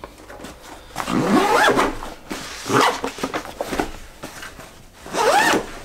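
Backpack zipper pulled open or shut about three times. Each quick pull gives a buzz that rises and then falls in pitch, with fabric handling between pulls.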